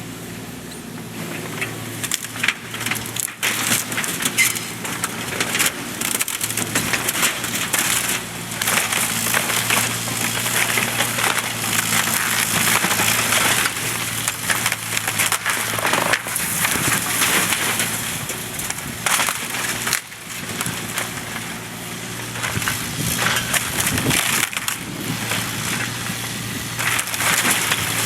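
Bobcat 328 compact excavator's Kubota diesel engine running steadily while the machine crushes and breaks wooden barn timbers, with continuous cracking, splintering and scattered sharp impacts of boards and beams.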